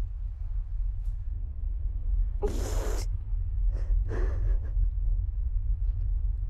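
Two sharp, breathy gasps from a person: a loud one about half a second long a little past the middle, and a shorter, weaker one about a second and a half later, over a steady low rumble.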